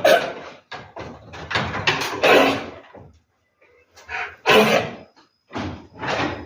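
A pregnant female animal coughing over and over in short harsh bursts, a deep cough like choking, with a pause of about a second midway: the sign of the respiratory illness that also has her refusing food.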